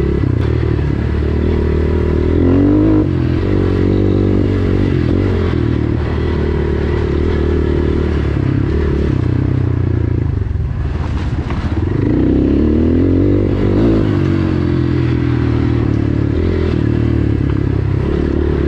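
GPX FSE250E dual-sport motorcycle's four-stroke engine running under way on a trail, the revs rising and easing off a couple of times with the throttle.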